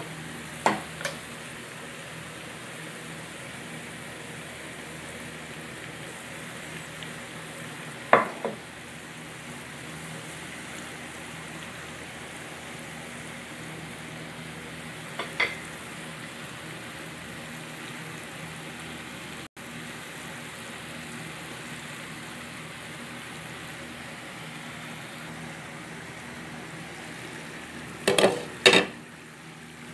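Summer squash frying in a pan with a steady sizzle, stirred with a wooden spatula that knocks against the pan a few times: about a second in, around eight and fifteen seconds, and twice near the end.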